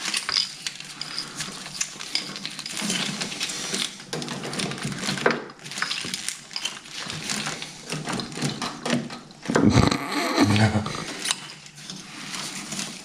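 Engine-bay wiring harness being handled and pulled into place, with irregular clicks and rustling from its plastic loom and connectors.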